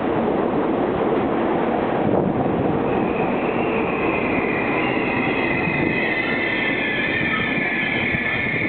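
R42 subway train pulling into the station, its cars rumbling steadily past on the rails. From about three seconds in, a high, wavering squeal of wheels and brakes joins as it slows.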